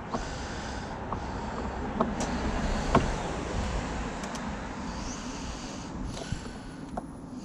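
Steady background rumble and hiss with a few light clicks and taps of hand tools against a car door panel, the sharpest about three seconds in.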